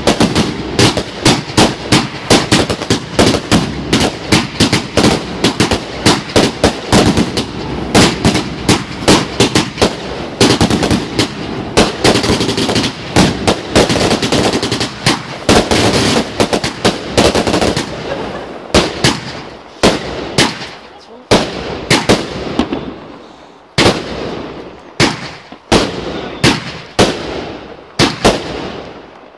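Fireworks going off in a rapid barrage of sharp bangs, several a second, then slowing to separate bangs about one a second over the last ten seconds or so.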